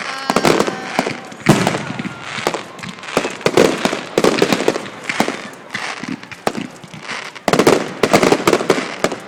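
Fireworks display: aerial shells bursting one after another in sharp bangs with crackling between them, with the loudest bang about a second and a half in and a dense run of bursts near the end.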